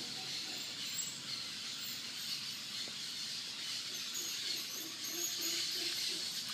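Outdoor ambience: a steady high hiss with a few faint, short bird chirps.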